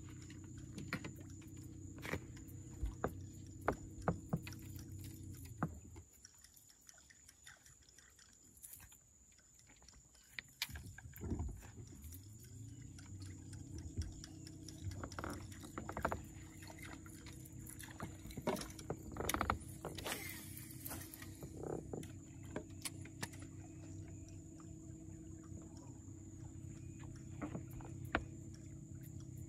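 Bow-mounted electric trolling motor humming steadily, cutting off about six seconds in and spinning back up about five seconds later. Scattered clicks and knocks run through it.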